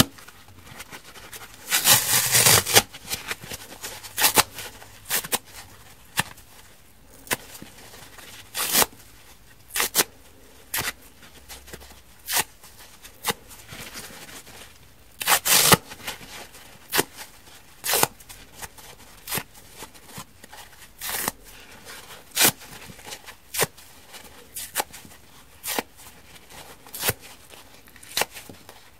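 Soft sponge foam being torn by hand: a string of short, sharp rips about once a second, with longer, louder tears about two seconds in and again near the middle.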